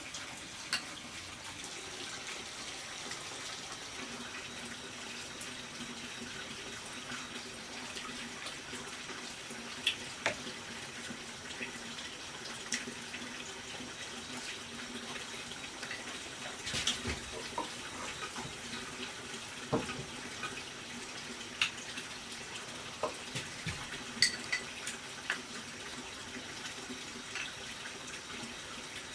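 Steady running water, like a tap or pipe flowing, with scattered sharp clicks and knocks every few seconds.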